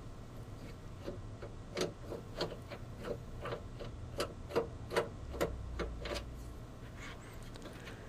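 Screwdriver turning a screw out of the top of a washing machine's control panel: a run of small metal clicks and ticks, about two a second, for several seconds.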